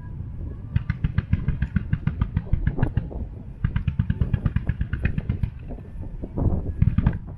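Distant fireworks barrage: rapid strings of sharp pops and crackles, many a second, in two runs over a low rumble, with a few heavier booms near the end.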